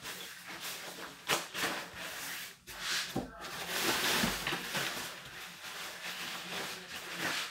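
Nylon rain-suit fabric rustling and crinkling as it is handled, in irregular swishes with a few sharper crackles.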